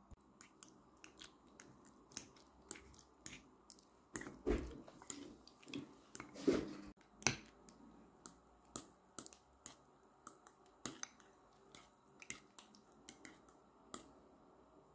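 A spoon stirring thick sour cream into beaten eggs in a ceramic bowl: irregular soft clicks of the spoon on the bowl and wet squelches of the mixture, with two louder knocks partway through.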